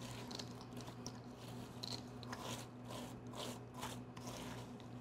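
A rubber spatula folds chocolate-and-peanut-butter-coated rice cereal squares in a stainless steel bowl, making soft, irregular crunching and scraping. A faint steady low hum runs underneath.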